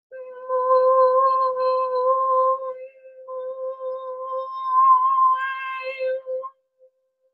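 A woman's voice singing one long, wordless held note in light-language style, steady in pitch. The vowel shifts a little near the middle and turns brighter shortly before the note stops, about six and a half seconds in.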